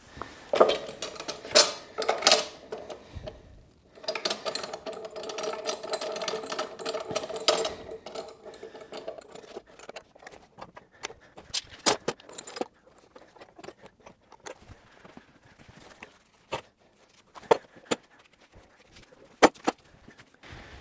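Long steel bar clamps being fitted and screwed tight across a glued 2x4 timber frame: scattered metal clanks, clicks and knocks, with a longer scraping, ringing stretch from about four to eight seconds in.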